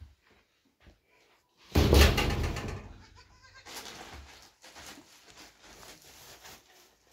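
A young goat bleating loudly once, about two seconds in, followed by the softer crinkle of a plastic bag being handled.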